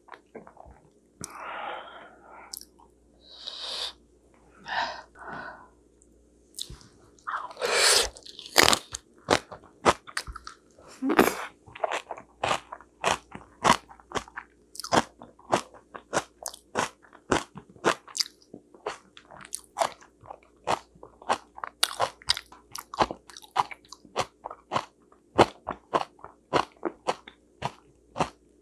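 Close-miked chewing of fresh napa cabbage kimchi with steamed sweet potato, the crisp cabbage crunching between the teeth. A few longer, louder bites come in the first several seconds, then steady crunching at about three a second.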